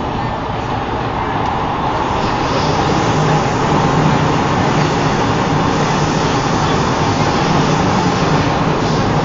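Steady running noise of a Singapore MRT train heard from inside the carriage. It grows a little louder about three seconds in, with a low hum underneath.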